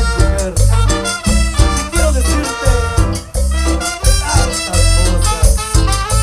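Live band playing loud cumbia dance music, with a strong, steady bass beat under the melody instruments.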